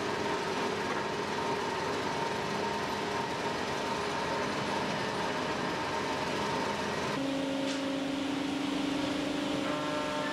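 CNC wood router running: a steady high whine over a constant rushing noise, the whine dropping to a lower hum about seven seconds in.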